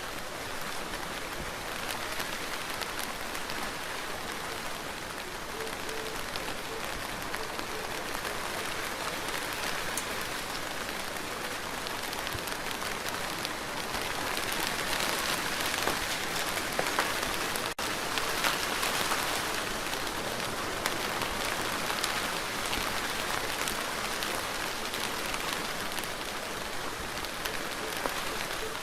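Steady rain falling in a dense patter, a little heavier for several seconds in the middle, with a split-second dropout about two-thirds of the way through.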